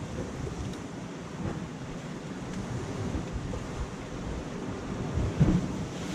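Sea surf washing on shore rocks, mixed with wind rumbling on the microphone. A short thump stands out about five and a half seconds in.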